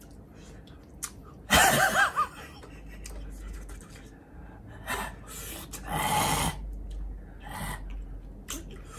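People laughing and gasping: a loud, high-pitched burst of laughter about a second and a half in, then several breathy gasps and exhales.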